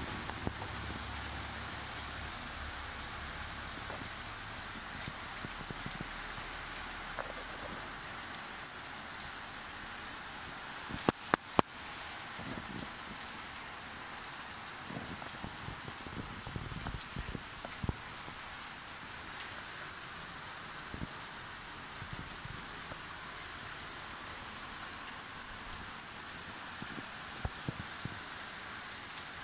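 Steady rainfall, an even hiss with scattered drops ticking. A low hum fades out over the first several seconds, and three sharp clicks come close together about eleven seconds in.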